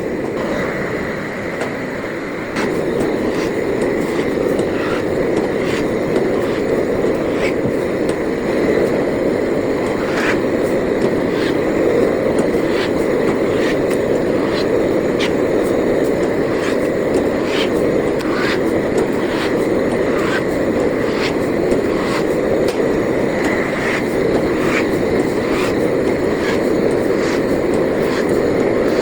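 Kebab-wrap (flatbread) making machine running: a steady mechanical hum with scattered clicks, getting louder about two and a half seconds in.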